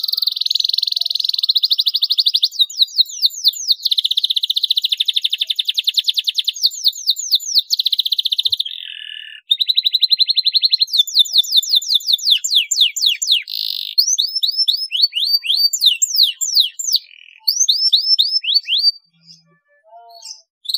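Domestic canary singing: long rolling trills of very fast repeated notes alternating with runs of quick downward-sweeping notes, with a brief break a little before the middle, stopping about two seconds before the end.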